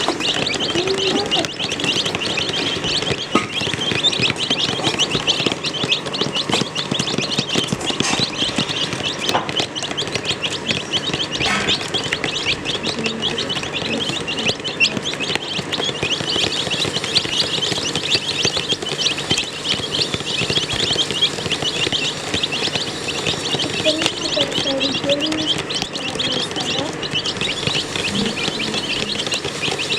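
A brood of baby chicks peeping continuously, many high, short chirps overlapping.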